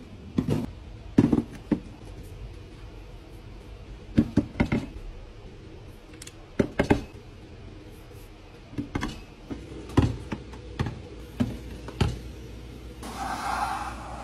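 Close handling sounds of a glass jar with a wire-bail clip lid and plastic syrup bottles on a tabletop: a series of separate knocks, clicks and taps at irregular intervals. A short rasping, rubbing noise comes near the end.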